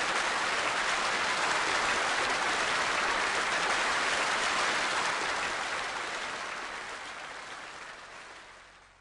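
Studio audience applauding at the end of a sitcom scene, steady at first, then dying away over the last few seconds.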